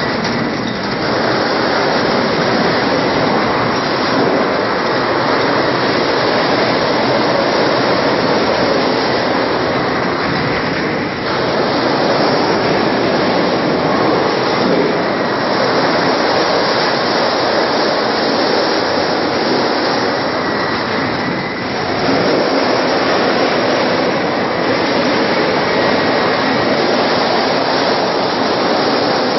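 Steel sheet straightening and cut-to-length line running: a loud, steady mechanical din of the straightening rollers and the moving steel sheet, dipping briefly a few times.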